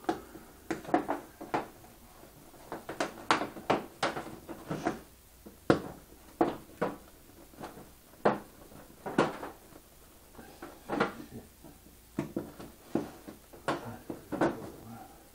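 Irregular knocks and clicks, some with a short ring, as small hard objects are handled and set down on a work board, two or three at a time with short gaps between.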